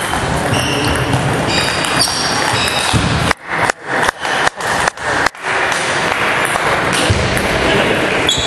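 Table tennis balls pinging off tables and bats over a steady din of hall noise, with the pings clustered in the first couple of seconds. About three seconds in, the sound cuts out briefly six times in quick succession.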